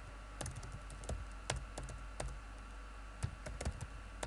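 Typing on a computer keyboard: a dozen or so sharp key clicks at irregular spacing, some in quick runs.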